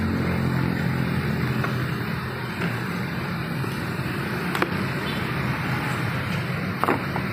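Vehicle engine and traffic noise in the background: a low engine hum fades about two and a half seconds in, leaving steady road noise. Two light knocks come later.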